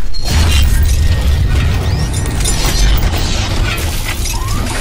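Sound effects of an animated outro title sequence: a loud, heavy steady bass with dense mechanical clicking and a few short whooshing glides, over music.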